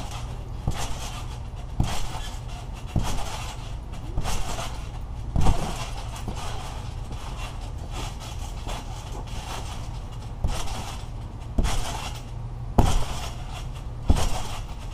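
Bodies bouncing and landing on a trampoline mat: a dozen or so irregular thumps, the strongest about five and a half seconds in, over a steady low rumble.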